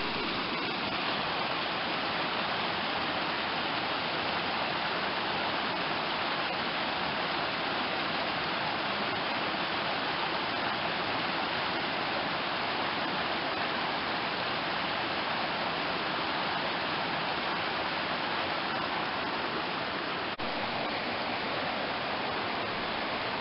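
Rocky mountain stream rushing and splashing over boulders, a steady, even rush of water.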